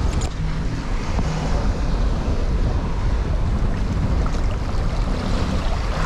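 Strong wind buffeting the microphone over the rush of waves and the sailboat's wake churning past the stern, a loud, steady noise.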